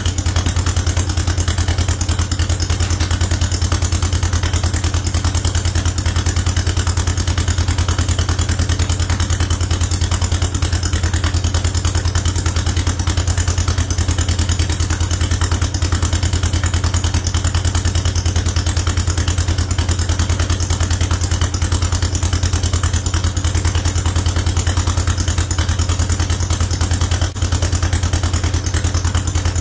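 John Deere 40 tractor's two-cylinder engine idling steadily with a fast, even pulse.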